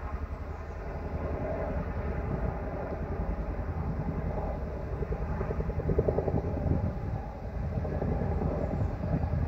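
Two Boeing CH-47 Chinook tandem-rotor helicopters flying past, their rotor blades beating in a steady, rapid thudding.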